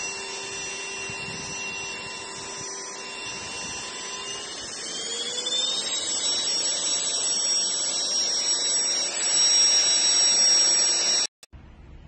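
Small high-speed electric motor whining steadily. About five seconds in its pitch rises and it gets louder, and near the end it cuts off suddenly.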